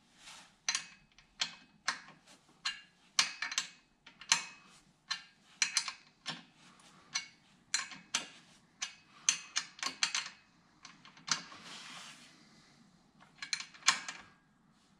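Small ratchet socket wrench being worked on a bolt: irregular metallic clicks and clinks, some single, some in quick clusters of ratchet ticks, with a short scraping sound a little after the middle.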